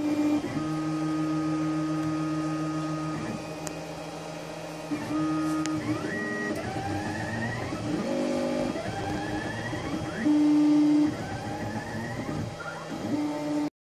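XYZprinting da Vinci 1.0 3D printer's stepper motors whining as they drive the print head during a print. They hold steady tones that change pitch with each move, with short rising and falling glides as the head speeds up and slows down. The loudest stretch is a steady, higher tone a little past ten seconds in.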